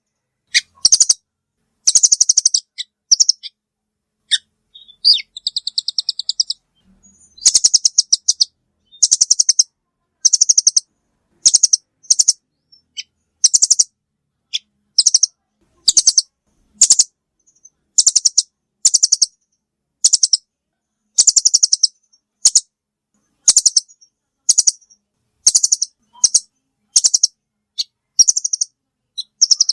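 Velvet-fronted nuthatch (rambatan) call played as a bird-trapper's lure: rapid, high trills of sharp chips, each burst under a second, repeated about once a second with a short pause a few seconds in.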